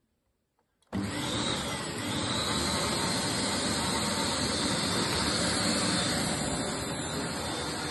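Dyson canister vacuum cleaner switched on about a second in: its motor comes up abruptly and runs steadily, a loud rush of air with a faint high whine.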